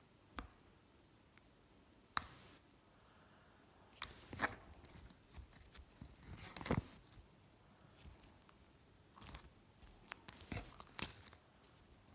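Slime being handled by hand, giving scattered short crunchy crackles and clicks with quiet gaps between them.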